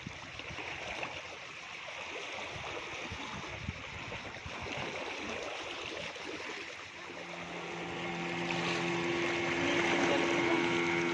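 Water washing against the shore, then a boat motor's steady drone comes in about seven seconds in and grows louder.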